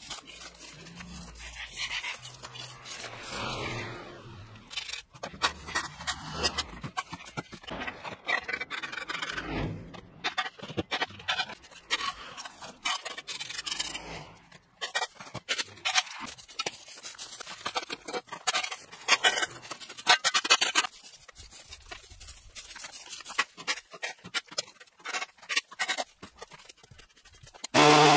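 Rake scraping dry gum leaves, bark and twigs along a concrete gutter in repeated, uneven strokes. A short loud animal call cuts in right at the end.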